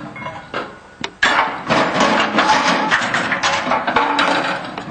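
Steel Medium Girder Bridge parts being handled: a couple of sharp metallic knocks, then from about a second in a dense clatter of metal with voices.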